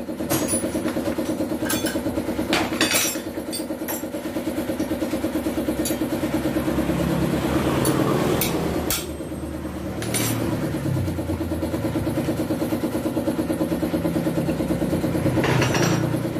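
An engine idling steadily, with a fast, even pulse, and several sharp metallic clinks of hand tools on engine parts scattered through it.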